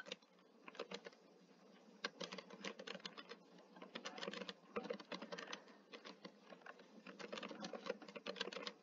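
Faint typing on a computer keyboard: a run of quick, irregular keystrokes, pausing briefly about a second in.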